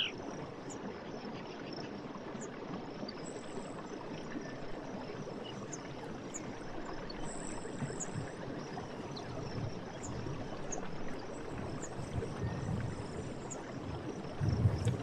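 Forest stream running: a steady rush of water with occasional low gurgles, the strongest near the end. Faint, short, high-pitched chirps sound now and then.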